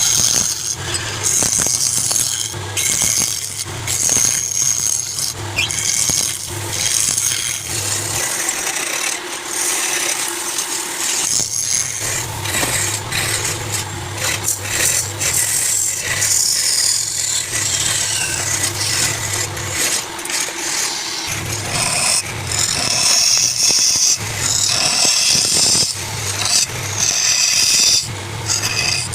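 Wood lathe running while a turning tool cuts the spinning wood: a low motor hum under a hissing, scraping cut with many small knocks. The hum drops out briefly twice.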